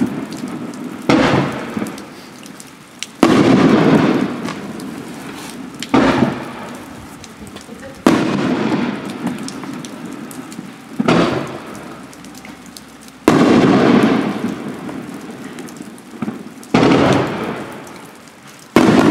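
A 3-inch, 9-shot finale fireworks cake firing shells, giving a sharp loud boom every two to three seconds. Each boom is followed by a long fading tail as the strobe effects break and die away.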